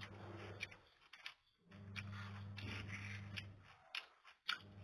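Faint rubbing and tearing of a thick blood sausage being pulled apart by hand, with a few sharp clicks as it is handled and brought to the mouth. A low steady hum runs underneath and cuts out twice.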